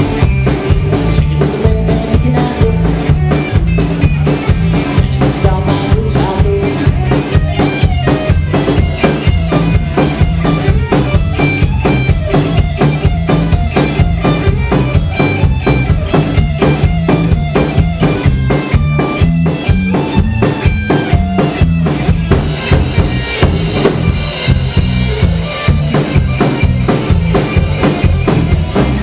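Live rock band playing an instrumental passage on electric guitar, electric bass and drum kit, over a steady, driving drumbeat.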